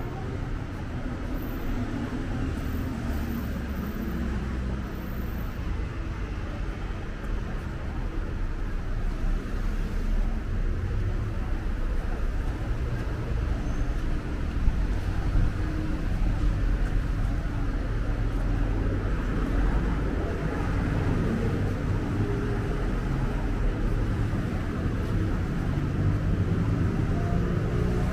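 City street traffic: a steady low rumble of cars running along the avenue, getting a little louder about a third of the way in, with a few faint knocks in the middle.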